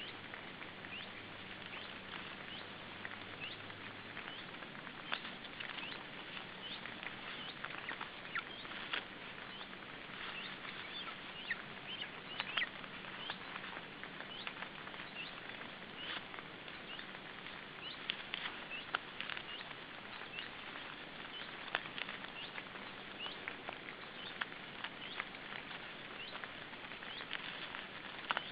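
Outdoor forest background: a steady hiss with many faint, irregular ticks and short high chirps scattered throughout.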